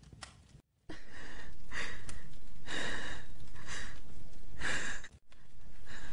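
A young woman breathing in short, heavy gasps, about one a second, as she comes round in pain, over a steady background hiss. The sound starts suddenly about a second in after silence and drops out briefly near the end.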